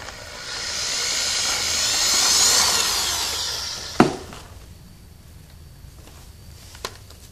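Corded electric drill boring into a snapped steel bolt in an engine block, running for about four seconds and swelling then easing off, ending in a sharp click. A smaller click comes near the end.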